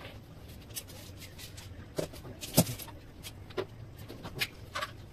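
Scattered sharp clicks and knocks of long PVC ceiling trim strips being handled, the loudest about two and a half seconds in.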